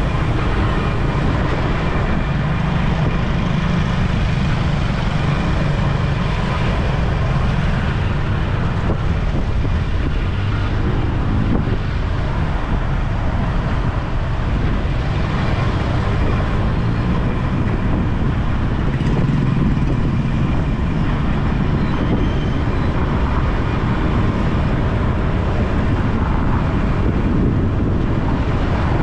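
Steady road and traffic noise heard while riding along a city street, a continuous low rumble with no break.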